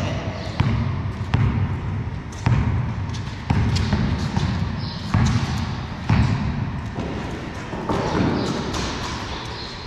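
Basketball dribbled on a concrete floor: sharp bounces coming irregularly, roughly one a second.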